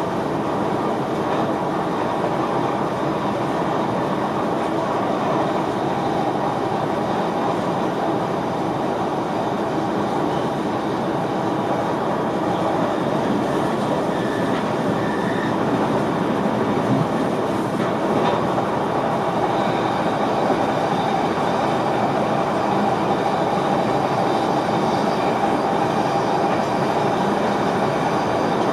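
Inside the driver's cab of an NS VIRM double-deck electric train on the move: steady running noise of wheels on rails. There is one short click about eighteen seconds in.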